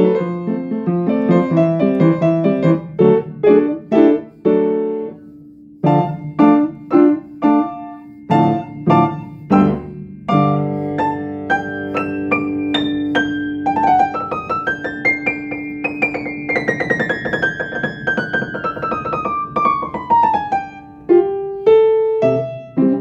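Solo piano playing: struck chords and single notes, then a long held low note under a fast run of notes descending in pitch in the second half, with a short pause near the end.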